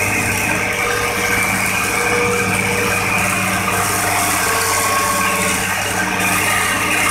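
Hitachi hydraulic excavator's diesel engine running steadily as the machine works its arm and bucket in peat, with a faint high whine over the engine note.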